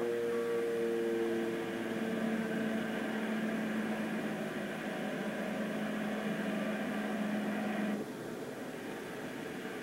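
Steady mechanical drone with hiss and a low hum, as heard on board a boat under way; the hum stops and the drone drops in level about eight seconds in.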